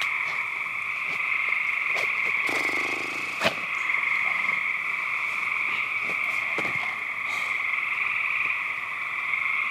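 Steady night chorus of calling frogs, an unbroken high drone, with a single sharp click about three and a half seconds in.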